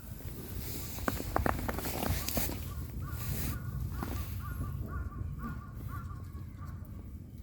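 A bird calling outdoors: a quick series of about eight short, repeated calls, roughly two a second, after a few sharp clicks.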